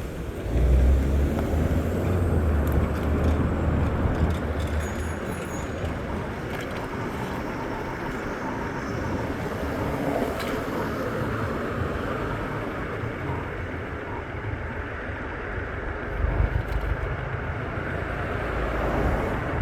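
Steady rolling road and traffic noise while riding a Bird electric scooter, with heavier low rumbles in the first few seconds and again about three-quarters of the way through.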